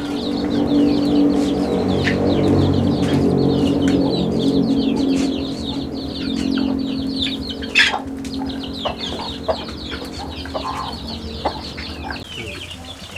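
Chickens clucking, with many short high chirps throughout, over a low steady hum that is loudest in the first few seconds. A single sharp snap about eight seconds in.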